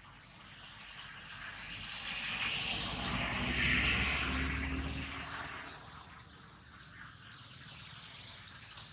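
An engine passing by: a rumbling swell of engine noise that rises, peaks about four seconds in, and fades away.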